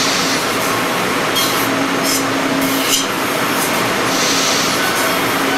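CNC router's high-speed spindle milling a mold pattern with an end mill: a steady cutting noise with a low hum that comes and goes and a few short, hissy surges as the tool bites.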